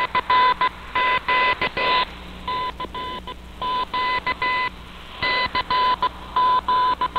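Morse code beeps received on a shortwave radio (Icom IC-R8600): a single steady-pitched tone keyed on and off in dots and dashes, with a low hum and faint hiss between the beeps.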